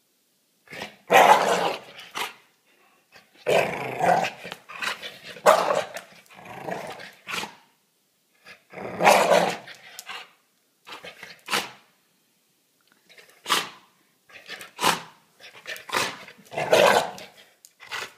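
Staffordshire bull terrier growling and barking while tugging at an object in a person's hand, in repeated loud bursts with short silences between.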